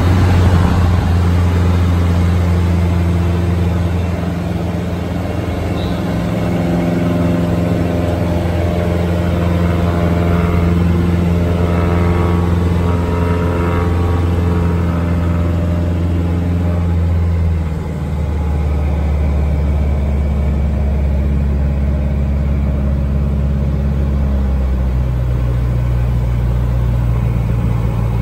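Van's RV-8 piston engine and propeller running steadily, heard from inside the cockpit. About eighteen seconds in, the engine note drops to a lower pitch and stays there.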